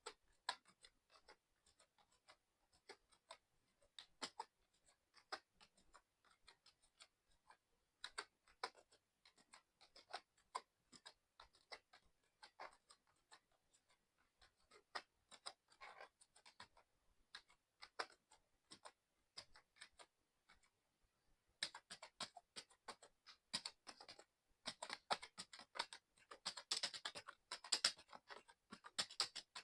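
Fast typing on a mechanical keyboard: a quick, uneven run of key clicks that grows denser and louder about three-quarters of the way through.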